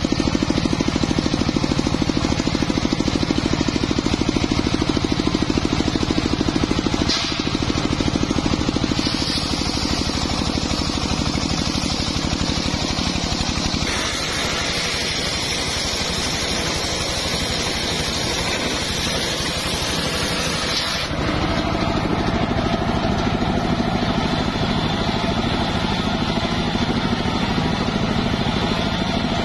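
Homemade circular sawmill running: the engine drives a large circular blade ripping a log lengthwise. The steady engine noise runs throughout, with a high cutting noise that rises and falls as the wood feeds through, and the sound shifts abruptly several times.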